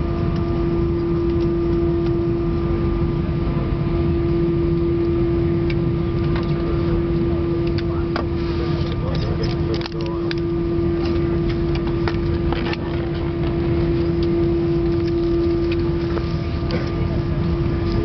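Airbus A319 cabin noise on the ground, heard inside the cabin: a steady low engine and air-system rumble with a constant hum. Scattered clicks and knocks come from about six seconds in.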